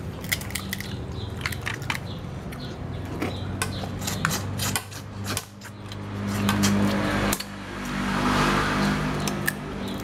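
Crab and shrimp shells cracking and clicking against a plastic plate while eating, over a steady low hum that grows louder twice in the second half, the first swell cutting off abruptly.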